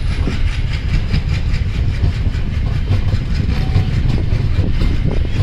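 Passenger train coach rolling slowly along the track, heard from its open doorway: a steady low rumble of the wheels on the rails with a fast, even rattle.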